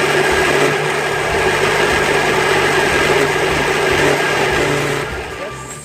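Electric blender running steadily, puréeing cooked tapioca soup, with a steady motor hum under the whirring; it winds down and stops about five seconds in.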